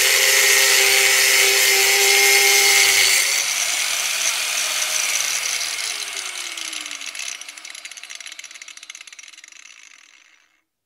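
125 mm angle grinder cutting sheet metal, a loud, steady hiss over a motor whine. About three seconds in the cutting stops and the motor winds down, its whine falling slowly in pitch as the sound fades to nothing.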